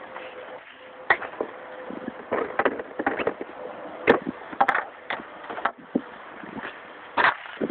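Hockey stick and pucks on a plastic shooting pad: the stick blade rakes pucks out of a plastic bucket and taps and slaps them on the pad, making a series of sharp clacks and knocks, the sharpest about four seconds in and again about half a second later.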